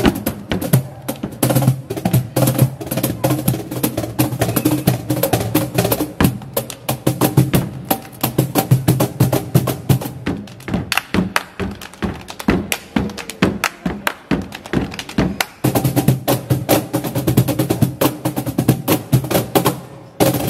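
Cajones flamencos struck by hand in a fast flamenco rhythm: dense, sharp slaps over deep bass strokes. The playing thins to sparser, separated hits for a few seconds in the middle, then builds back to a dense flurry.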